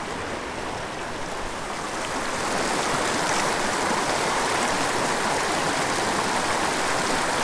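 Shallow mountain stream rushing over a rocky bed in riffles, a steady rush of water that grows a little louder about two seconds in.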